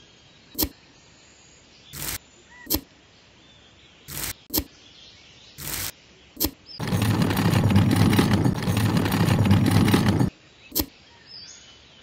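Small scrapes and taps of a miniature shovel digging and dumping sand, heard as about eight short sharp sounds. In the middle a loud, low rushing noise runs for about three and a half seconds, starting and stopping abruptly.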